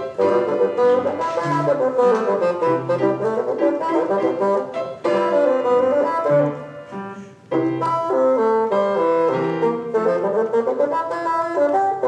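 Bassoon and grand piano playing a brisk classical concerto movement, the bassoon carrying a moving line over the piano accompaniment, with a short lull about seven seconds in.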